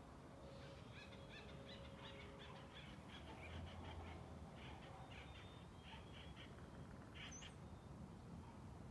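Faint forest birdsong: a bird calls in quick runs of short repeated notes, with a single higher chirp about seven seconds in.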